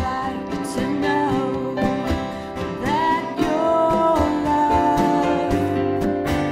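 Live band music: a woman singing a melody over strummed acoustic guitar, keyboard and congas, with a steady beat.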